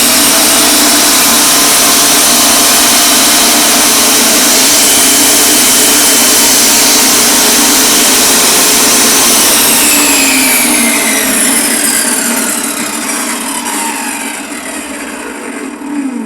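Hitachi table saw running at full speed with the blade spinning free, not cutting. About nine and a half seconds in it is switched off and winds down, its whine falling steadily in pitch as the blade coasts toward a stop.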